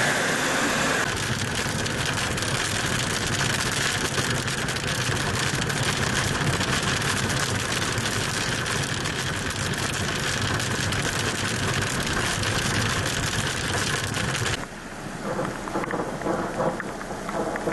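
Heavy hail about an inch across pelting down, a dense, steady clatter of countless small impacts. It becomes quieter and patchier about fifteen seconds in.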